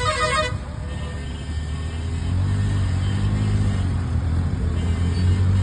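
Auto-rickshaw engine running with a steady low drone that grows louder and fuller about two seconds in, under the tail of background music that stops about half a second in.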